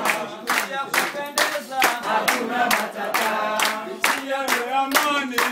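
A group of voices singing together to steady hand-clapping, about two claps a second.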